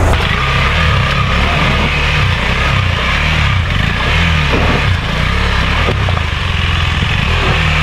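Single-cylinder engine of a KTM 390 Adventure motorcycle running off-road, its revs rising and falling unevenly.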